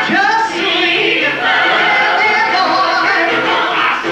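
A group of singers performing a show tune with instrumental accompaniment.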